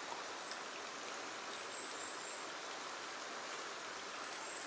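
Steady, even hiss of running water, with a few faint high chirps over it.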